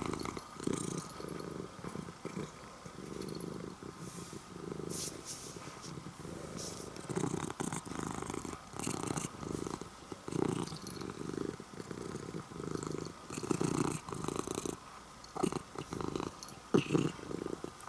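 Orange-and-white domestic cat purring close up, a continuous low rumble that pulses about once a second.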